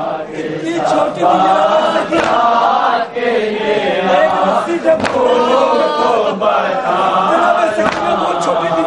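A group of men chanting a Shia nauha (mourning lament) in Urdu, following a male reciter, with sharp slaps of chest-beating (matam) now and then.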